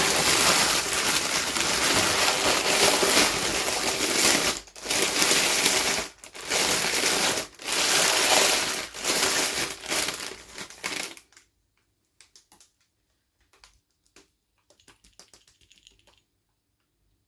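Packaging crinkled and torn open in loud, dense crackling stretches with a few short pauses, stopping about eleven seconds in. After that come faint, scattered clicks and taps of small pieces being handled.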